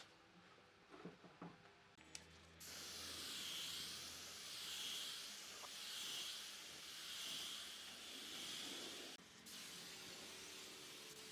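Compressed air hissing steadily, swelling and fading about every 1.3 s as if swept back and forth. It starts about two and a half seconds in after a few light clicks, cuts off about nine seconds in, and a fainter hiss follows.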